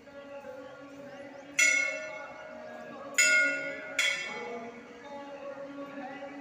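Hanging temple bell rung by worshippers: three clear strikes, the last two close together, each ringing out and fading, over a low murmur of voices.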